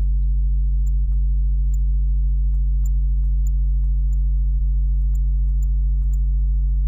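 Steady low electrical hum, with about a dozen faint computer mouse clicks at uneven intervals.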